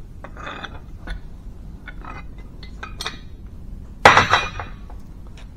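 Faint metallic scraping and clicking as a hydraulic cylinder's head gland is turned with a pipe wrench, winding its retaining wire out of the groove. About four seconds in there is a single loud, ringing metal clink.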